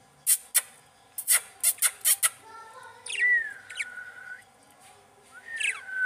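Budgerigars calling: a quick run of sharp chirps in the first two seconds, then about three seconds in a call that sweeps down and holds a steady whistle for about a second, with another like it starting near the end.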